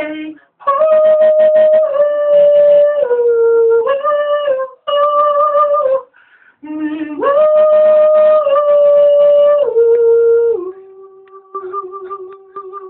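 A man singing a cappella with no words, holding long notes that step up and down in pitch, with a short break in the middle. Near the end he settles on a quieter, lower held note.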